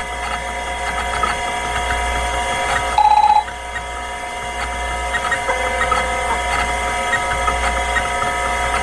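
Electronic outro music with held tones and short beeping notes, including a pulsed beep about three seconds in.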